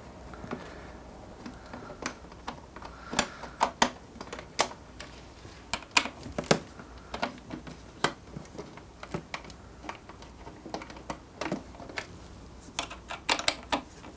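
Irregular light clicks and taps of a small screwdriver working screws out of a portable power station's plastic case, with the screws being handled.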